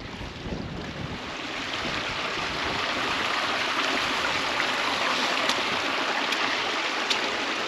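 Water from a small moorland waterfall and stream rushing steadily. It grows louder over the first couple of seconds, then holds, with a few faint ticks in the second half.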